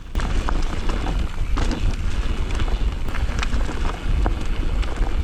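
Wind buffeting the microphone during a fast e-mountain-bike descent, with tyres rolling over the dirt trail and scattered small knocks from the bike on rough ground.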